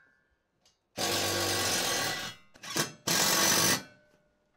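Cordless power driver running in short bursts, driving screws through a steel bracket into corrugated metal wall siding. A run of about a second and a half starts a second in, then a brief blip, then a shorter run.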